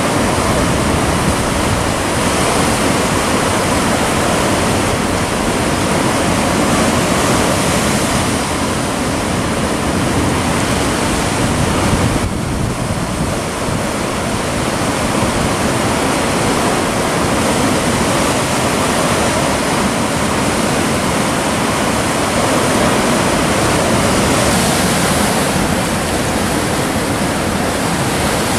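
Steady wash of sea surf breaking on rocks, with a brief lull about twelve seconds in.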